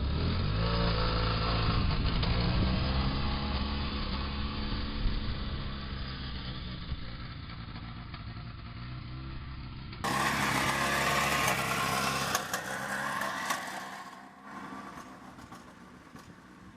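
The Polaris Ranger XP 700's twin-cylinder engine revs up and pulls away, fading steadily into the distance; it sounds tired, and the owners suspect it is running on one cylinder. About ten seconds in, it gives way to a different, hissier recording with a few clicks, which also fades down.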